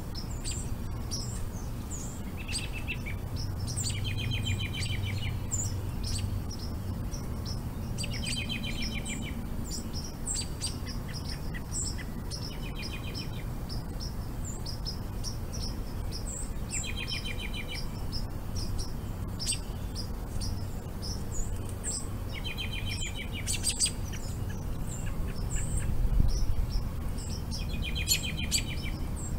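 Many small birds chirping, with a short rapid trill repeated every few seconds, over a steady low rumble.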